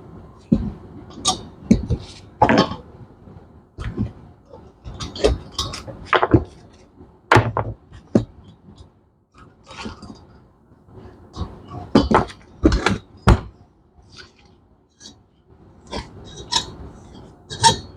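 Irregular knocks and clicks of tools and cylinder-head parts being handled on a workbench.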